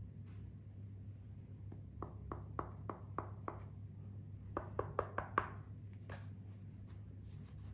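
A series of light knocks, about three a second, then after a short pause a quicker run of five, the last the loudest, over a steady low hum.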